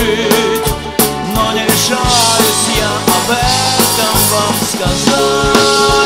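Live pop band playing an instrumental passage between sung lines: a steady drum beat under sustained melody notes.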